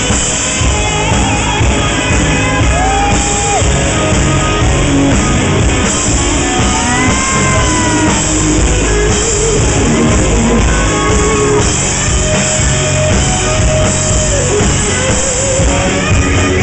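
Live hard rock played loud, led by an electric guitar holding notes that bend up and back down, over a dense, heavy band sound.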